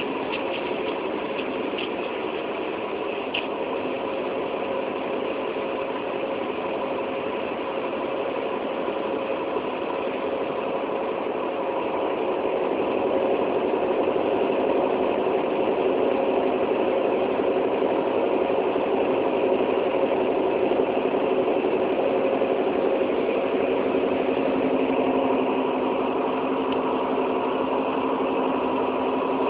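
Train's diesel engine running steadily, a constant hum with several steady tones, getting a little louder about twelve seconds in.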